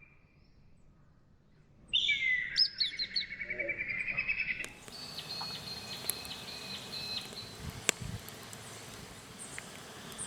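Wild birds calling: after a quiet start, a loud run of rapid chirping calls comes in about two seconds in and lasts a couple of seconds. Fainter repeated bird notes follow over a steady background hiss.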